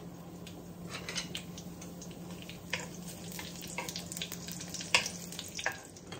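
Dried guajillo chiles frying in hot avocado oil in a frying pan: a low, steady sizzle with scattered crackles, and a wooden spoon knocking against the pan a few times, the sharpest knocks near the end.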